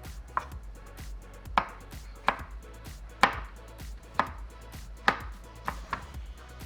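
Knife chopping vegetables on a cutting board: eight sharp, unevenly spaced chops, roughly one a second.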